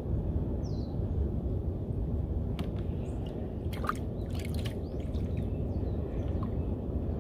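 Water lapping and dripping around a small wooden boat over a steady low rumble, with a few light clicks about halfway through and brief high chirps.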